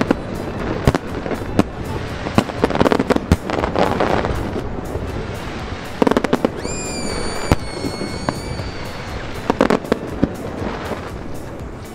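Fireworks show: irregular clusters of sharp bangs and crackles, over background music. About halfway through a high, steady whistle sounds for about two seconds.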